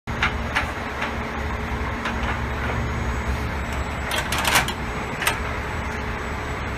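Ratchet of a car-hauler wheel strap being worked by hand: several sharp metallic clicks at uneven intervals, a cluster of them about four seconds in, over a steady low hum.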